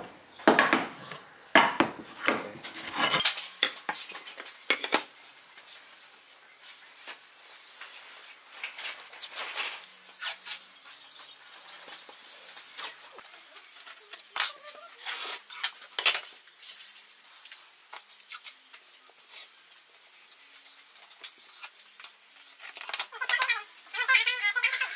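Wooden boards knocking and sliding against each other and a wooden workbench as they are handled, a quick run of knocks in the first few seconds, then lighter taps and rubbing as strips of tape are pressed onto the boards, with a short rasp near the end.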